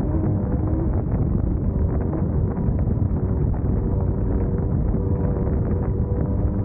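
Class 1600 off-road race buggy's air-cooled VW 1600 engine running steadily under load, with wind noise and constant knocking and rattling from rough terrain.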